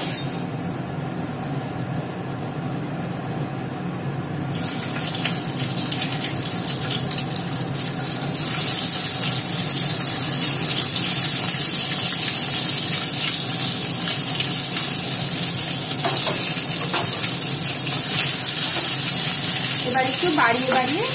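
Battered boneless chicken pieces sizzling in hot oil in a kadai as they go back in for a second fry to crisp them. The sizzle gets louder at about four seconds and again at about eight seconds as more pieces are added, then holds steady.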